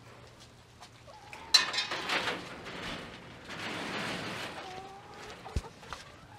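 Leaves and plant stalks rustling and scraping against the phone as it pushes through dense garden foliage. It starts suddenly about a second and a half in, comes in two rough bursts, and ends with a sharp thump near the end.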